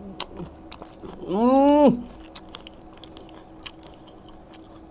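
A mouthful of crisp corn-loop cereal in sweetened condensed milk being chewed, with many small crunches and clicks. About a second and a half in, the eater gives a loud hummed "mmm" that rises and falls in pitch.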